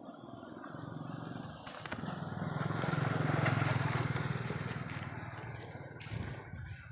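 A motor vehicle passing by: engine rumble and road noise swell to a peak about halfway through, then fade away.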